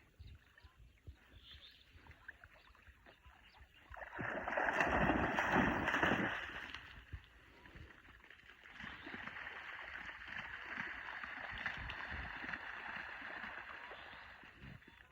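Water splashing and sloshing, with a louder spell about four seconds in that lasts a couple of seconds, then steadier splashing.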